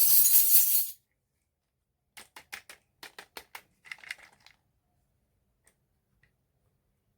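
Small pieces of a miniature toy kitchen set being handled. About a second of loud rustling comes first, then a quick run of about a dozen light clicks and taps, then a few faint ticks.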